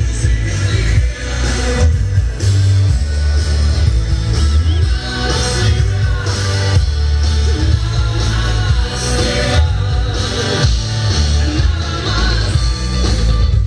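Loud recorded music with a singing voice and heavy bass, played over a sonidero's large outdoor sound system.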